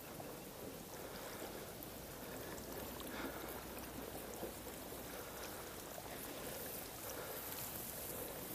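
Faint, steady outdoor noise of water, with a few small rustles and ticks.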